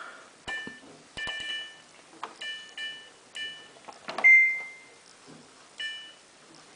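Samsung WF8804RPA washing machine's control panel beeping as its buttons are pressed in service mode. There are about half a dozen short beeps, with faint button clicks, and one longer single-tone beep about four seconds in.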